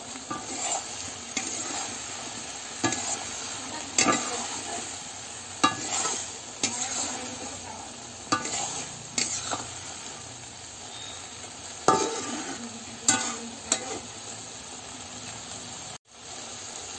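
A curry of pui shak, potato and gourd sizzles in a hot kadai while a spatula stirs it, scraping and knocking against the pan about every second. The sound cuts out suddenly for a moment near the end.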